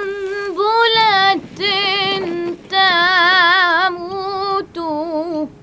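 A solo female voice singing a slow, mournful song in several short phrases of long held notes with a wide vibrato.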